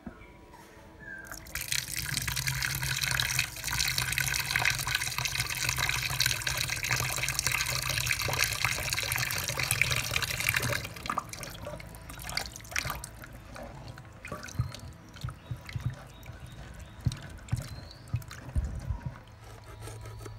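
Water pouring from a hose into a wooden bowl of pork pieces in a steel sink, rinsing the meat. It starts about a second and a half in and stops about halfway through. After that come scattered light knocks and clicks of hands at work.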